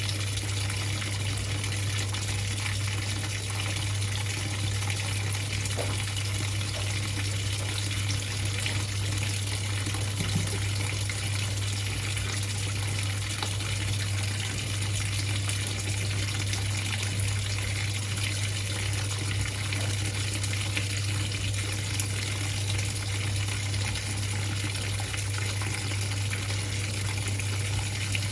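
Whirlpool 3RLSQ8033SWD top-loading washing machine filling, water gushing steadily into the tub, with a steady low hum.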